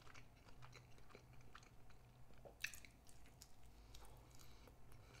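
Faint close-up chewing of food: soft wet mouth clicks and smacks, with one sharper click about halfway through, over a steady low hum.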